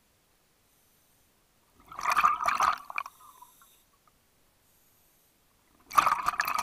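Scuba diver's regulator exhaling, with bubbles underwater: two bubbling bursts about a second long, one about two seconds in and another near the end.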